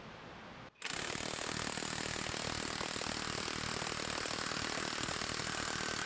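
Harbor Freight Hercules Ultra Torque brushless 1/2-inch cordless impact wrench hammering steadily as it drives a bolt tight against load in a five-second working torque test. It starts abruptly about a second in and cuts off near the end.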